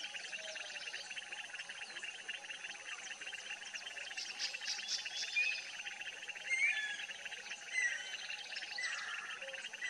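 Natural outdoor ambience: a dense, fast, even pulsing chorus with a steady high hiss behind it. From about halfway through, short gliding bird chirps come in four or five times, and these are the loudest sounds.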